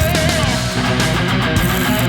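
Background rock music with distorted electric guitar.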